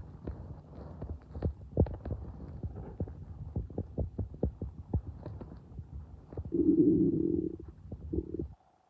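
Empty stomach rumbling and gurgling, with many short low pops and a louder drawn-out gurgle at about seven seconds. It is a sign of hunger.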